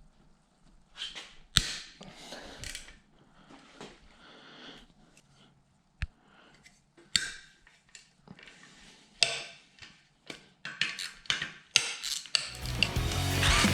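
Metal tools and bike parts clinking and knocking a few times, separate sharp clanks among quieter handling noises. Near the end a louder, continuous mechanical rattle starts and keeps going.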